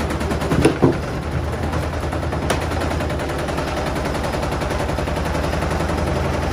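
Hoover Dynamic Next 13 kg washer-dryer spinning with its door open: a loud, steady run with a fast, even rattle over a low hum. A couple of knocks come about a second in, and a sharp click follows a little later.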